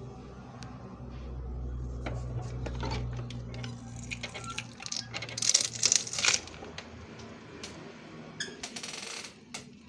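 Manual cup sealer being worked by hand: a run of metal clicks and rattles from its lever and sealing-film roll, busiest in the middle, over a low hum that fades out after about six seconds, with a short hiss near the end.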